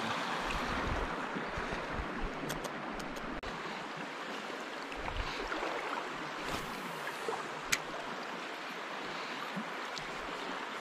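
Shallow river current rushing steadily over rocks and riffles, with a few faint sharp ticks, the clearest about three-quarters of the way through.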